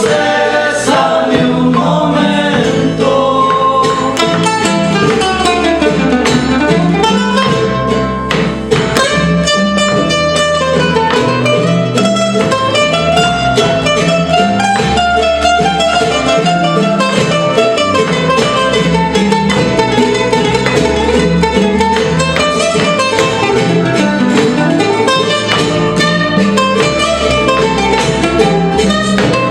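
Son jarocho ensemble playing live: jaranas strumming and a requinto picking the melody over a plucked bass, with voices singing.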